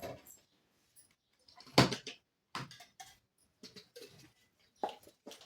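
Containers and food items being handled and set down in a refrigerator: a sharp knock about two seconds in, then several lighter clunks and rattles.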